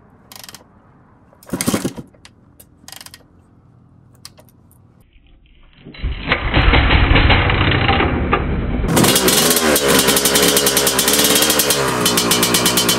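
2002 Honda CR250's 250 cc two-stroke single-cylinder engine, freshly rebuilt, being kick-started. A few sharp kicks do not catch, then it fires about six seconds in and keeps running, its revs rising and falling.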